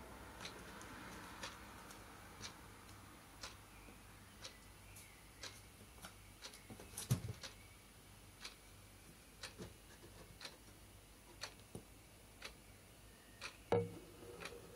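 A clock ticking steadily, about once a second, with a couple of soft thumps, one about halfway through and one near the end.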